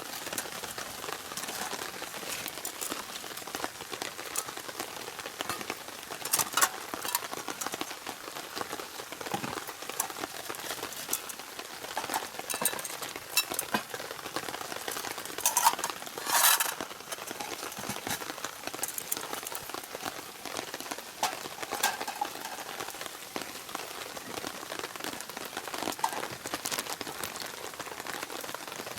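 Rain falling steadily, a continuous hiss with scattered sharper taps and drips, a few louder ones about a quarter of the way in and just past halfway.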